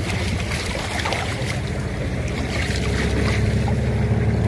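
Boat moving across choppy lake water: water rushing and splashing against the hull, with wind on the microphone over a steady low rumble that grows slightly louder toward the end.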